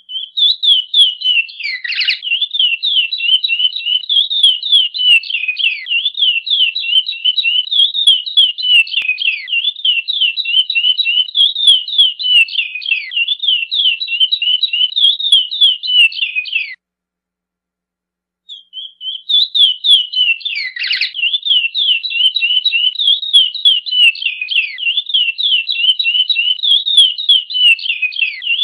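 Chestnut-bellied seed finch (curió) singing its 'praia' song: a long, rapid run of clear notes. The song breaks off for about two seconds about two-thirds of the way through, then starts again.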